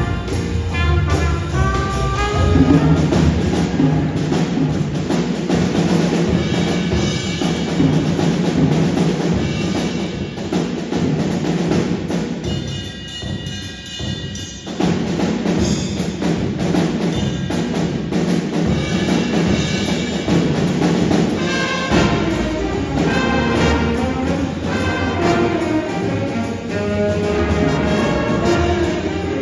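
Jazz band playing a blues, with brass and drums. The band drops to a quieter passage about twelve seconds in, then comes back in full a few seconds later.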